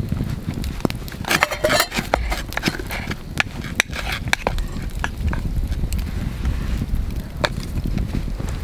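Wood campfire crackling, with scattered sharp pops over a steady low rumble. A utensil scrapes and scoops rice in a metal pot a little over a second in and again about four seconds in.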